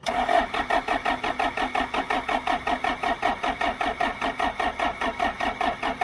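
John Deere 310 backhoe's diesel engine cranked by its electric starter, jumped by hand at the starter: an even chugging of about seven compression pulses a second, turning over without the engine firing.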